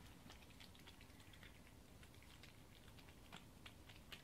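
Domestic cat eating from a bowl: faint, irregular clicks of chewing and crunching food.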